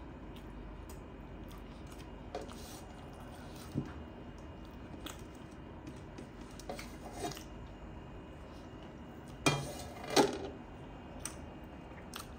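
Eating by hand from a stainless steel plate: scattered light clicks of fingers and food against the plate, then two louder clanks of the metal plate close together about ten seconds in.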